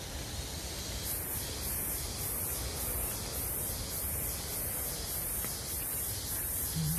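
Insects buzzing, a high-pitched buzz that pulses evenly about one and a half times a second and starts about a second in, over a steady low rumble.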